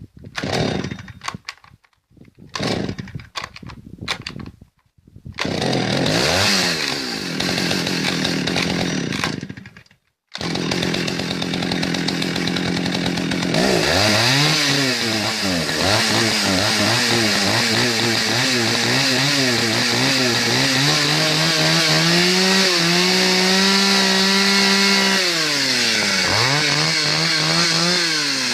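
Partner R14 T two-stroke chainsaw engine sputtering in short bursts, then catching and running. It is revved up and down repeatedly, held at high revs for a few seconds, then let back down and revved again.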